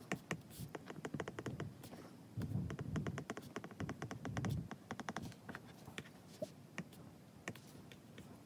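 Apple Pencil tip tapping and clicking on an iPad's glass screen during handwriting, in quick runs of light ticks. A low rumble comes in about two and a half seconds in and lasts about two seconds.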